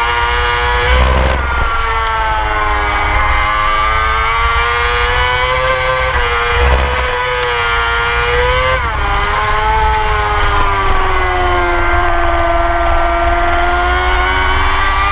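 Moto2 race bike's Honda 600 cc four-cylinder engine running hard, heard from the bike itself. Its pitch climbs slowly, drops sharply about nine seconds in, sinks further, then rises again.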